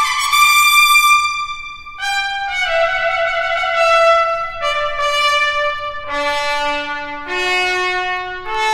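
Solo trumpet playing a line of held notes. It starts high and steps down note by note to a low note about six seconds in, then climbs back up.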